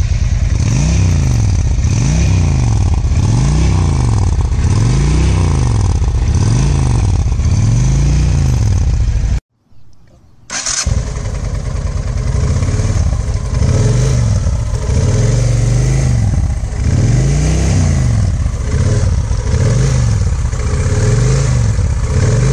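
Cruiser motorcycle engine revved over and over, its pitch rising and falling about once every second and a bit. The sound breaks off for about a second near the middle, then the engine comes back in and the revving carries on.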